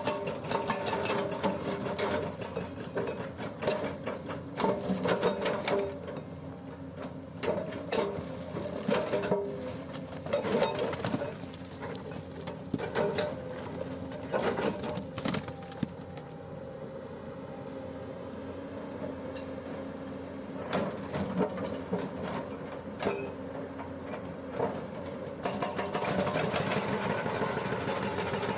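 Excavator-mounted hydraulic breaker hammering in a fast, steady rattle. It stops about six seconds in and starts again near the end, with scattered knocks in between over the excavator's diesel engine running.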